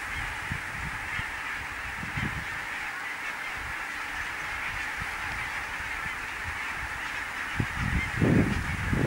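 A large flock of geese calling overhead in flight, many overlapping calls blending into a continuous chorus. Near the end, wind starts buffeting the microphone and grows louder than the birds.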